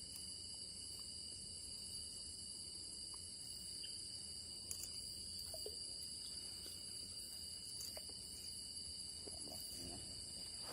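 Steady night-time jungle insect chorus: several high-pitched, continuous trills at different pitches, with a few faint clicks and knocks.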